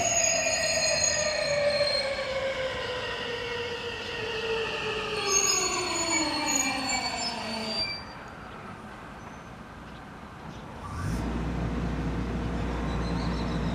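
JR West 521-series electric train braking to a stop: the whine of its motors falls steadily in pitch, with high-pitched squeals in the last few seconds before it halts about eight seconds in. A few seconds after the stop a steady low hum starts up.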